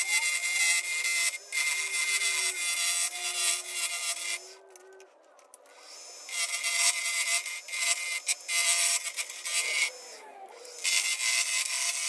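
A parting tool cutting into a spinning purpleheart and maple blank on a wood lathe, making a dry, hissing scrape. The cut stops twice, for about a second and a half roughly four seconds in, and again for about a second near ten seconds, as the tool eases off the wood.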